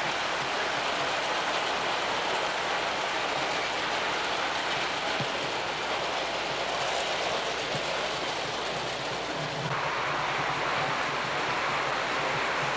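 O scale model trains rolling along the track: a steady rushing rumble of wheels on rail that shifts in tone about ten seconds in.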